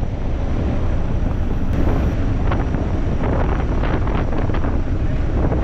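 Loud, steady rush of wind and engine noise inside the cabin of a De Havilland C-147A twin-turboprop aircraft in flight, with heavy wind buffeting on the microphone.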